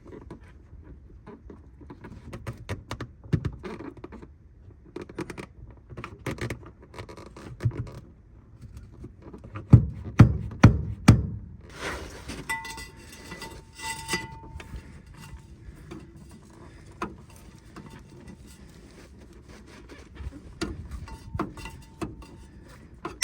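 Metal clunks and rattles of a Ford F150 transfer case shift lever and linkage being twisted and worked loose, with a few heavy knocks about ten seconds in followed by a brief metallic ring.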